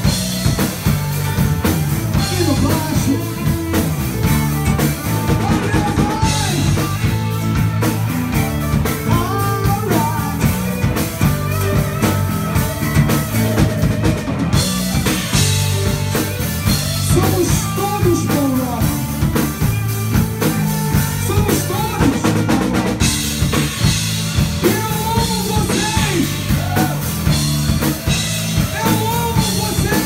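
A live rock band playing: drum kit, bass guitar, electric guitar and acoustic guitar, with a steady drum beat and a melodic line sliding between notes.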